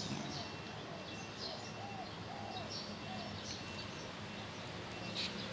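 Small birds chirping now and then, short high chirps a second or so apart, over a steady low hum.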